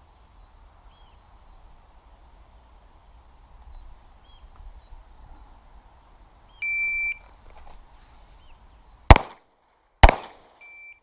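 Shot-timer start beep, then two pistol shots about a second apart, then a shorter par-time beep about four seconds after the start beep, marking the end of the 4-second par time.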